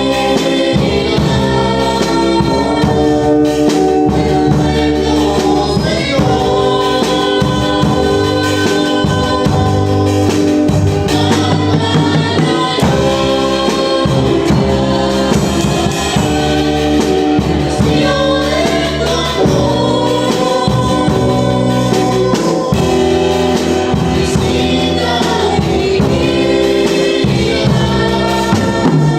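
A gospel music group singing a song with several voices together, backed by instruments with a steady beat.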